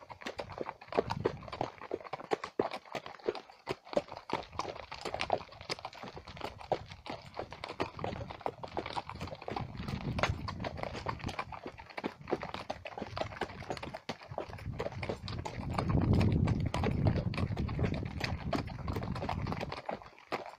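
Horses' hooves clip-clopping at a walk on a stony dirt track, a steady run of sharp knocks. Low rumbling noise joins in about ten seconds in and again, loudest, from about sixteen to nineteen seconds.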